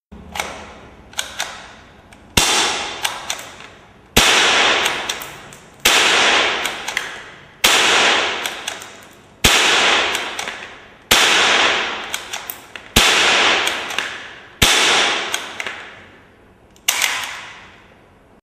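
M4-style cap-firing model gun shooting single shots about every two seconds, roughly ten in all. Each sharp crack dies away with a long echo and is followed by a few lighter clicks.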